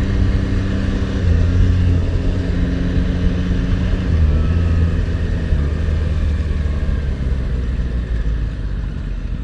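Yamaha MT-09's three-cylinder engine running under way, mixed with wind and road noise. Its note steps down a few times, and it gets a little quieter near the end.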